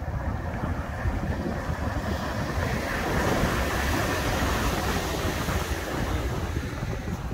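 Wind buffeting the microphone with a low rumble, and a wave of surf hissing in about two seconds in, swelling and washing away again by about six seconds.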